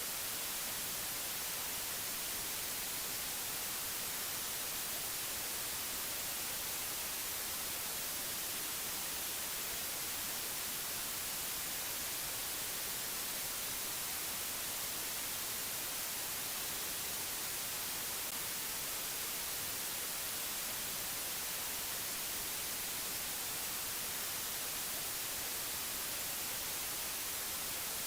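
Steady, unchanging hiss like white noise or static, brightest in the high pitches, with no tones, clicks or changes.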